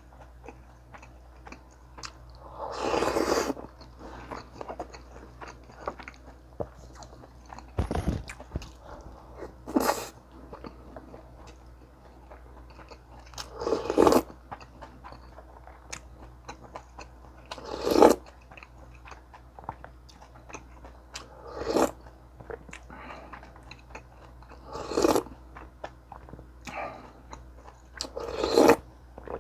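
Close-miked eating: steady chewing, with louder bites and crunches of kimchi every few seconds.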